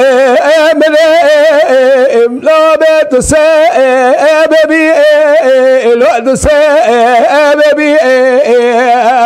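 Man singing unaccompanied in the Kurdish dengbêj style: a loud, wavering, heavily ornamented vocal line held almost without pause, broken only by two short breaks about three and six and a half seconds in.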